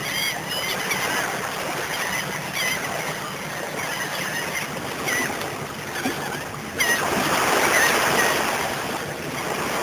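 Waves washing with birds calling over them in short rising-and-falling cries again and again; the wash grows louder about seven seconds in.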